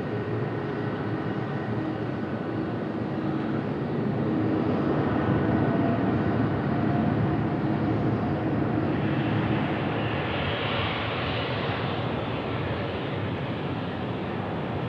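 Jet airliner's engines running: a steady noise with faint steady tones in it, swelling a little in the middle, with a brighter hiss coming in about ten seconds in.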